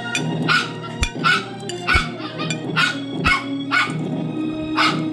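A dog barking repeatedly, about eight short barks, over background music.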